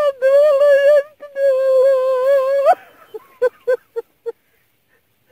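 A woman wailing a ritual lament of the Gagauz rain-making rite: a long, wavering, high held note that breaks off in a rising cry, then a few short sobs.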